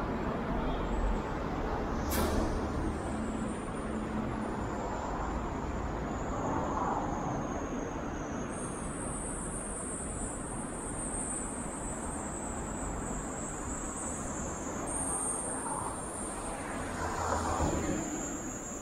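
Road traffic on a wide multi-lane street: cars passing in a steady wash of engine and tyre noise that swells and fades as vehicles go by, with a short sharp hiss about two seconds in. A steady high-pitched buzz sets in about halfway through.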